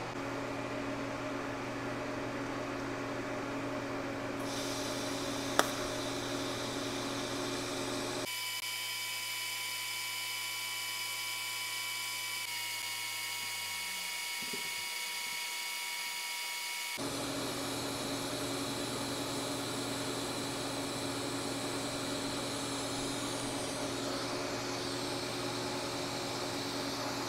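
TIG welding arc with a steady hum and faint whine as a small part turns on a benchtop welding positioner. One sharp click about five and a half seconds in.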